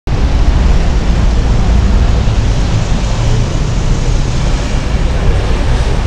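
Busy city street traffic: a loud, steady low rumble of passing buses and cars.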